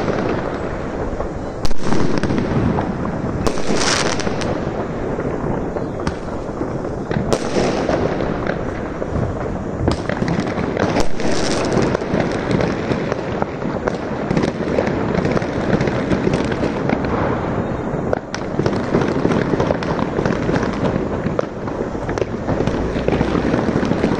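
Fireworks going off in a dense, continuous barrage of bangs and crackling bursts, with a sudden loud bang about two seconds in.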